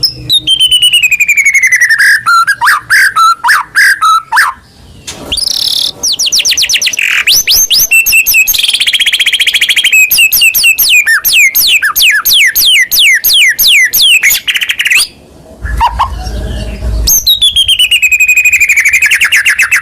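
White-rumped shama in full, loud song: long phrases of rapid repeated whistles, trills and falling sweeps, broken by a couple of short pauses.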